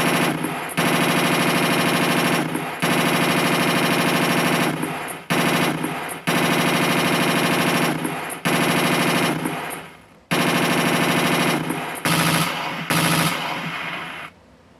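Machine-gun fire played by a 1/16 RC tank's electronic sound unit: a run of about eight rapid bursts, each one to two and a half seconds long with short breaks between, the last ones shorter.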